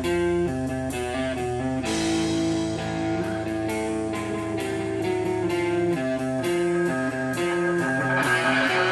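Rock band instrumental passage: electric guitar picking a slow melodic line of ringing notes over a steady low drone. The drone drops out about six seconds in, and a wash of noise swells in near the end.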